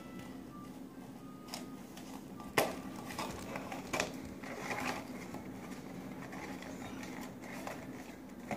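Fingers handling and picking at a small cardboard blind box: light scratching and a few sharp clicks, the clearest about two and a half and four seconds in, as the top flap is worked loose.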